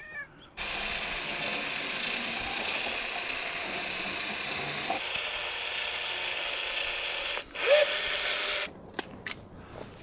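A steady mechanical whirring that runs for about seven seconds and stops, then a shorter, louder burst about seven and a half seconds in, followed by a few sharp clicks.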